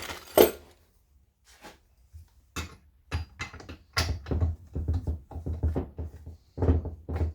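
A run of short knocks, clunks and rattles from the chainsaw and tools being handled while a compression test is set up, a few per second from about two and a half seconds in.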